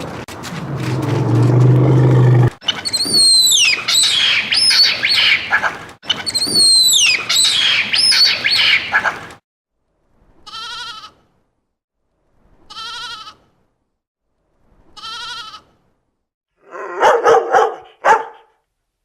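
A run of different animal calls, one after another. First come high, falling whistled calls. Then there are three short calls about two seconds apart, and near the end a dog barking.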